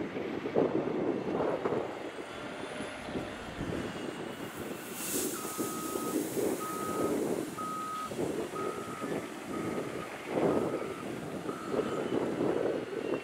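Caterpillar 972M XE wheel loader's diesel engine running under load. About five seconds in, gravel pours from the tipped bucket, and its reverse alarm starts beeping about once a second, seven beeps in all.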